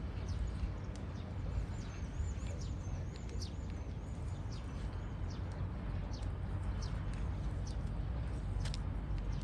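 Small birds chirping: a quick twittering run of high chirps in the first half, then scattered single chirps, over a steady low rumble of background noise.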